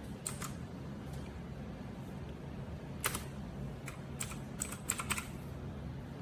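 Keys of a DareU EK87 V2 mechanical keyboard being pressed: scattered single keystroke clicks, a few at first, then a quick cluster of several about four to five seconds in.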